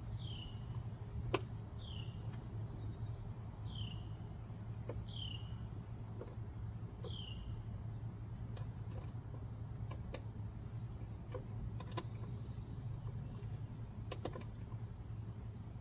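A bird calling with short, downward-sliding chirps, repeated about every second and a half through the first half, then a few higher chirps later, over a steady low hum. Scattered small clicks and taps from hand-fastening a fridge handle, the sharpest about a second in.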